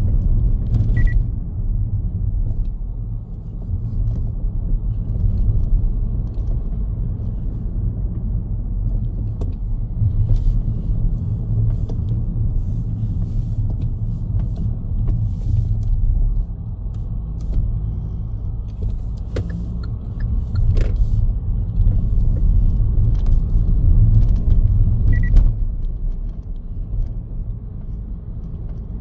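Car driving on the road: a steady low rumble of engine and road noise, with a few short clicks and two brief high beeps, one about a second in and one near the end.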